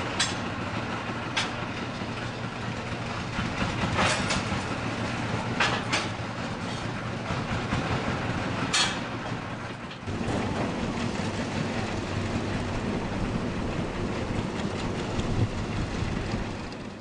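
Small tractor engines running steadily, with sharp metallic clanks from steel brick carts, several in the first half. About ten seconds in the engine sound changes to a steadier, lower running as tractors tow trains of loaded brick carts.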